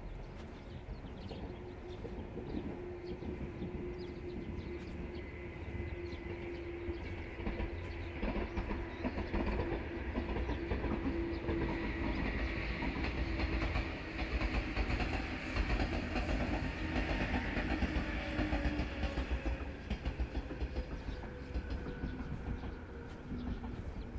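A train passing, growing louder to a peak about two-thirds of the way through with a rhythmic clatter of wheels over the rails, then fading. A steady hum slowly drops in pitch as it goes by.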